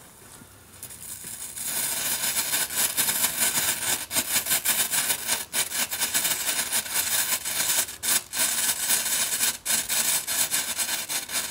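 Back 2 Back (GBV-Weco) Blinkies category-1 strobe pellets burning: a dense, steady crackling fizz that builds over the first two seconds, with brief breaks now and then.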